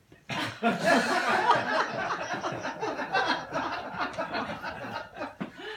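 A small audience laughing, breaking out about a third of a second in and dying away near the end.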